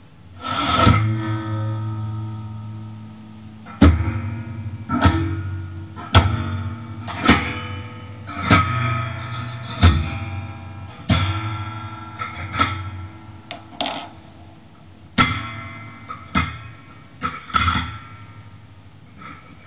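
Steel springs on an amplified spring noise box struck and plucked about fifteen times at irregular intervals of roughly a second. Each hit twangs and rings out in a decaying, pitched tail like a plucked string.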